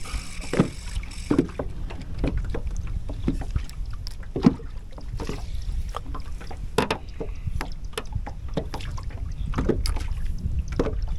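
Steady low rumble of wind and water around a small fishing boat, with scattered light clicks and knocks from handling a spinning rod and reel.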